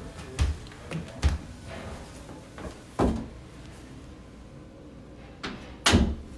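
A handful of short knocks and thumps, about five, spread over a few seconds, with the loudest near the end.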